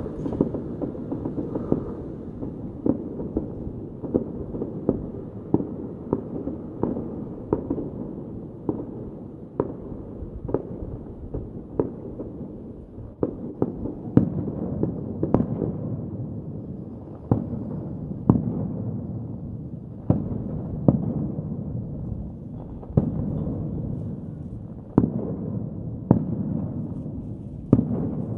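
Fireworks display: a steady run of muffled bangs, roughly one or two a second, over a continuous low rumble and crackle, the bangs hitting harder from about halfway through.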